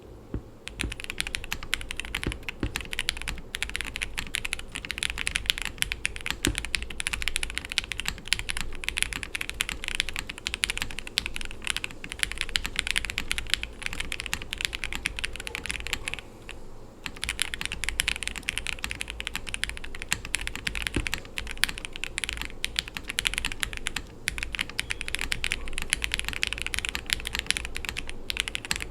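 Continuous typing on a Tiger Lite gasket-mount mechanical keyboard with a polycarbonate plate, lubed Jwick Red linear switches and GMK keycaps: a dense, steady stream of keystrokes with one brief pause just past halfway.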